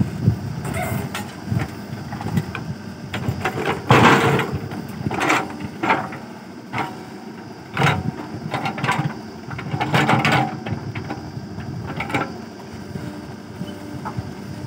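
JCB backhoe loader's diesel engine running under load while the backhoe digs, with irregular knocks and scrapes of the bucket working the soil, the loudest about four seconds in and again around ten seconds in.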